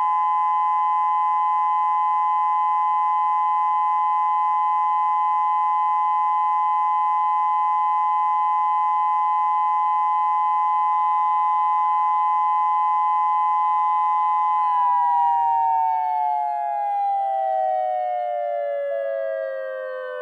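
Electronic outdoor warning siren sounding its steady (alert) signal: a loud, unwavering chord of tones held for about fifteen seconds. Near the end it slides slowly down in pitch as the signal winds down.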